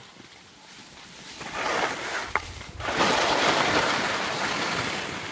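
Wind gusting across a phone's microphone, a rushing noise that builds after a second and a half and blows hardest from about three seconds in, easing off near the end.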